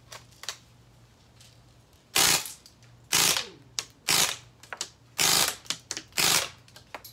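Umarex Steel Force CO2 BB rifle firing in six-round burst mode. There are five loud bursts of shots about a second apart, starting about two seconds in, with fainter clicks between them.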